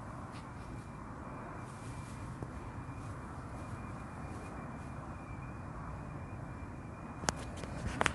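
Steady low rumble of outdoor background noise, with a sharp click about seven seconds in and two more close together near the end.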